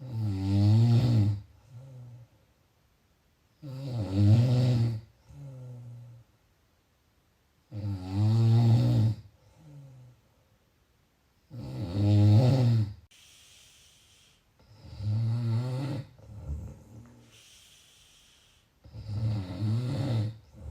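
A person snoring: six loud, low, buzzing snores about four seconds apart, each followed by a shorter, fainter breath sound.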